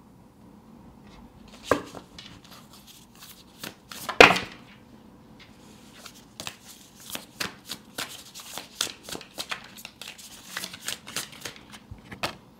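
A deck of tarot cards being handled and shuffled by hand. Two sharp snaps come in the first few seconds, the louder about four seconds in, then a rapid run of card clicks several times a second as the deck is shuffled.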